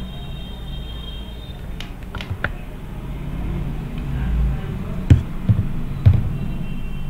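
A steady low hum of room noise, broken by a handful of short sharp clicks and knocks; the loudest come about five and six seconds in.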